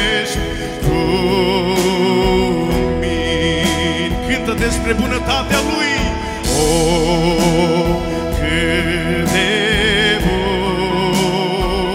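A man sings a slow worship song with a wavering vibrato, accompanied by an electronic keyboard with sustained chords and a steady bass.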